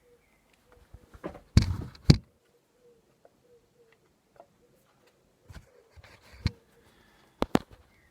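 Handling noise as a phone and a Super 8 camera are fumbled into position against each other: scattered clicks, taps and knocks, loudest a little under two seconds in and again near the end, over a faint wavering hum.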